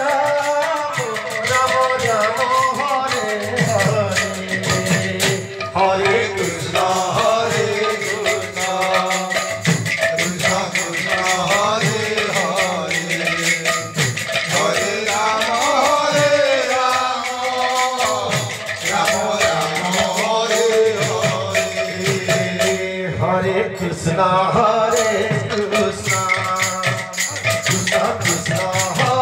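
Live devotional kirtan: a singer chanting a melody through a microphone, with a barrel drum and rattling hand percussion keeping a steady beat.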